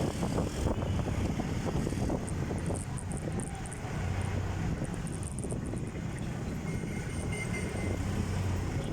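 Steady vehicle running noise with wind rumble while riding along a road, a low engine-like hum swelling twice, with faint high chirps above it.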